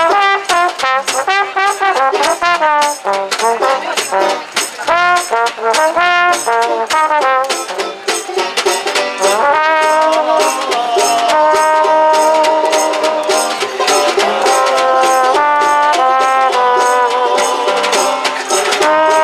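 Small acoustic swing band playing: a trombone carries the melody over a plucked upright double bass and a snare drum played with brushes, which keeps a steady beat. About halfway through, the melody settles into long held notes.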